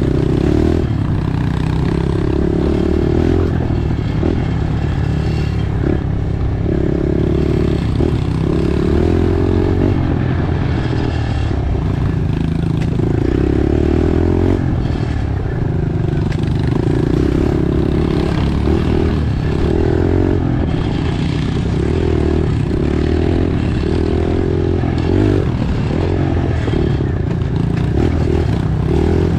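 Pit bike engine running hard on a dirt trail, revving up and easing off every second or two as the throttle opens and closes.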